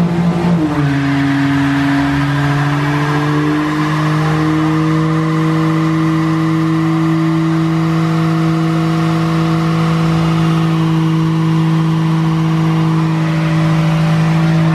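Small front-wheel-drive hatchback doing a burnout: the engine is held steadily at high revs, its pitch edging slightly higher after the first couple of seconds, while the front tyres spin and smoke on concrete.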